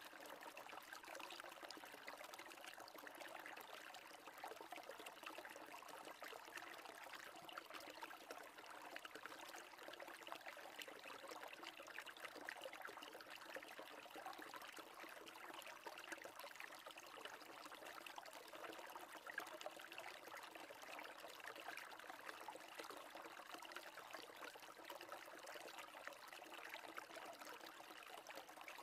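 Near silence: a faint steady rushing noise in the background, even throughout.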